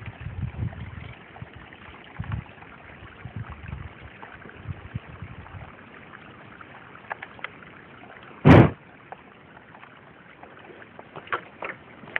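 Handling noise on a handheld camcorder's microphone: low rumbling thumps for the first few seconds, then a faint hiss with scattered small clicks. One loud short knock comes about eight and a half seconds in.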